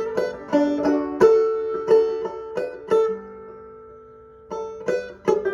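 Banjo played clawhammer style: a quick rhythmic run of plucked notes, then a chord left ringing and dying away for about a second and a half, then a few more plucked notes near the end.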